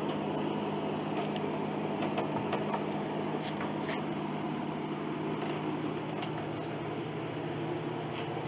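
Steady low machine hum of workshop background noise, with a few faint clicks scattered through it.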